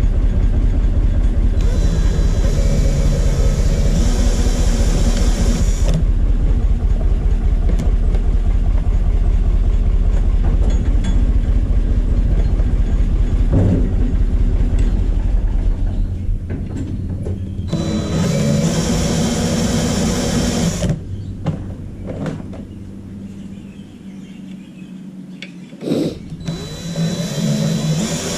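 Cordless drill turning a wire-stripping machine as insulated copper wire is fed through, running in three bursts of a few seconds each: about 2 s in, about 18 s in, and again near the end. A steady low rumble lies under the first half and stops about 16 s in.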